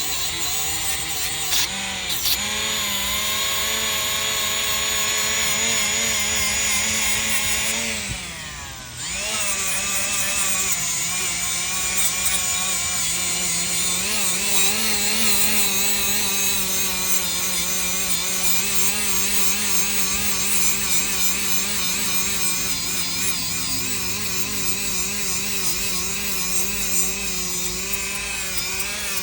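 Power tool spinning a gasket remover disc against an engine block's sealing surface to strip old gasket material. The motor whines steadily, its pitch wavering under load. About eight seconds in it briefly slows and drops in pitch, then spins back up.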